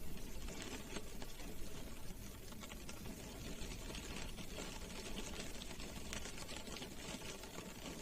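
Rain pattering on a car's roof and windows, heard from inside the car: a dense, steady tapping of drops.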